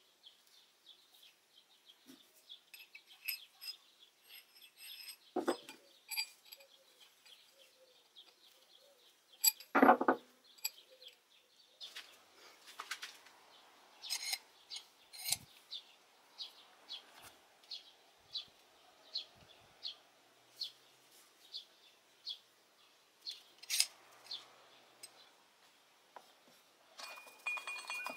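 Small steel parts being handled: light metal clinks and clicks, with two louder knocks in the first half. Then a steady run of light ticks, about two a second, as a threaded steel rod is worked through a steel bushing. Near the end, a denser scrubbing noise begins as a paintbrush works on the steel vise.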